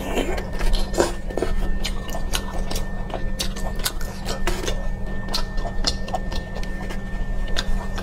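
Wet clicking mouth sounds of a person chewing cooked octopus, many short sharp clicks over a steady low hum.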